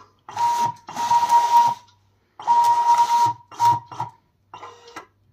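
Skycut cutting plotter's motors driving the cutting-head carriage and media rollers in a series of short moves, each with a steady whine: about three longer runs, then several quick short ones.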